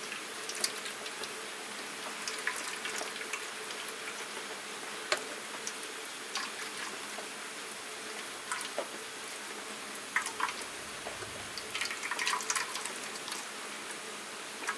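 Green vegetable soup trickling from a tilted metal saucepan into another metal pan, with scattered light clicks and scrapes of a wooden spoon against the pan.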